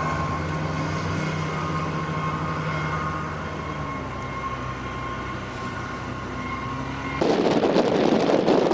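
A vehicle engine runs with a steady low hum and a few faint steady tones. About seven seconds in, loud blizzard wind buffeting the microphone abruptly takes over.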